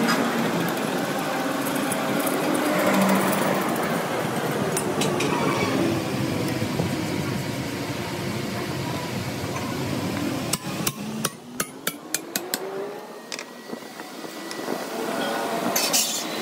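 Steady rushing noise beside the coal forge heating a broken truck front axle part, then, about ten and a half seconds in, a quick run of about seven sharp metal knocks, roughly three a second.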